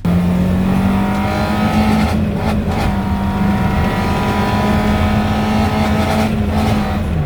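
Car engine running as the car drives, its note climbing slowly in pitch as it pulls, then dropping near the end.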